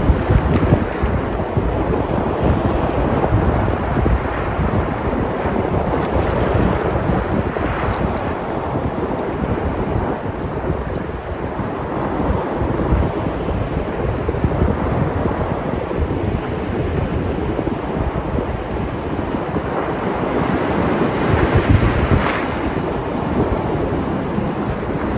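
Sea waves breaking and washing on the shore in a continuous surf, swelling and easing slowly, with a stronger surge near the end. Wind buffets the microphone with a low rumble.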